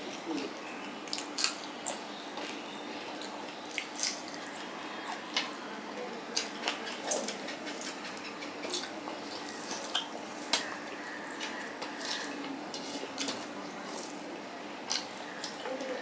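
Eating sounds close to the microphone: chewing and mouth smacks as a fried hilsa with rice is eaten by hand from a steel plate, with sharp clicks and taps scattered throughout over a steady background hiss.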